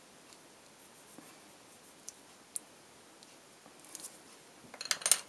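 Prismacolor pencil blending over paper, with faint light strokes and small ticks. About five seconds in comes a brief cluster of louder clicks and scrapes.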